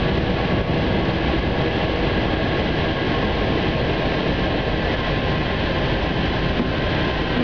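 Paris Metro MP05 rubber-tyred train running at speed through a tunnel, heard from the driver's cab: a steady, dense rolling noise with a faint steady whine.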